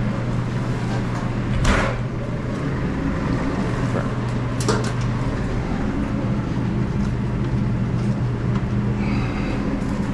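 Restaurant cook line at work: a steady low machine hum under a constant hiss, with a sharp knock about a second and a half in, another near five seconds, and a brief high tone near nine seconds.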